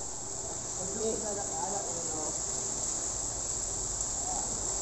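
A steady high-pitched hiss-like buzz, with faint distant voices now and then.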